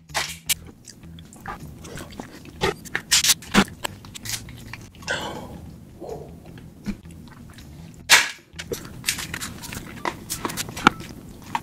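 Sharp cracks and snaps of cooked, sauce-coated lobster shell being broken apart by hand and cut with kitchen scissors. The cracks come irregularly, the loudest about eight seconds in.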